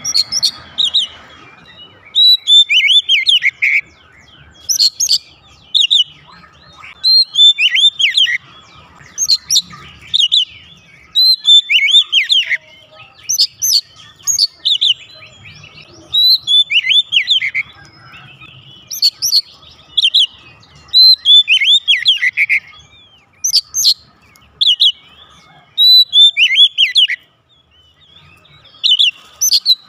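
Oriental magpie-robin singing loudly: short phrases of clear whistled notes, many sliding downward, repeated in bursts every second or two.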